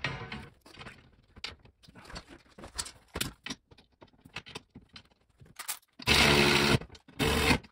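Light clicking and rattling of a sheet-metal plate and screws being handled and set in place, then from about six seconds a power drill running in two short bursts, driving screws through the metal plate into the seat rails.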